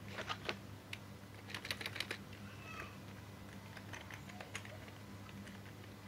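Keys of a new computer keyboard being pressed, giving scattered clusters of clicks that are not very loud.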